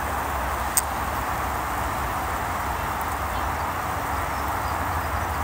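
Steady rush of distant road traffic with a low rumble underneath, and a single short click a little under a second in.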